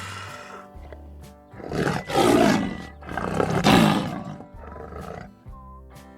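Lion roaring twice, each roar about a second long, over background music.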